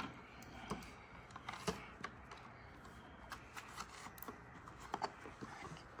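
Faint handling noise from the plastic parts of a Roomba robot vacuum being worked loose: a low rustle with a scattering of soft clicks.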